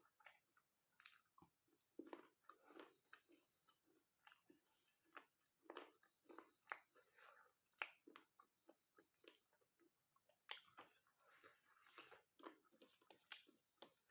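Faint, close-up sounds of a person chewing and eating chicken curry with rice: irregular wet smacks and clicks of the mouth, with an occasional crunch.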